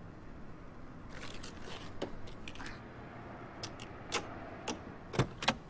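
Irregular sharp clicks and knocks over a low steady background, starting about a second in, with the loudest ones near the end.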